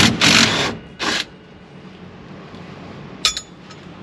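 Tools and metal dash parts being handled: two loud scraping or rattling bursts in the first second, then a short ringing metallic clink a little over three seconds in.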